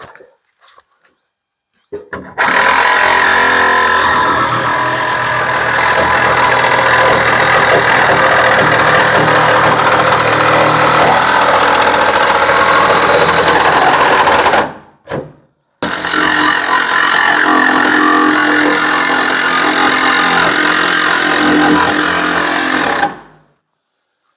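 Milwaukee M18 cordless reciprocating saw with a fine metal-cutting blade, cutting through a van's sheet-metal door panel around a corner of a window opening. It runs in two long cuts, about twelve seconds and then about seven, with a short pause between them, and stops suddenly near the end.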